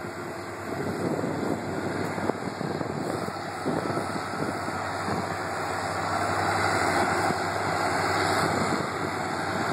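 Vehicles driving slowly on a gravel road: a steady low engine hum under tyre and road noise, with a hiss that swells from about six to nine seconds in.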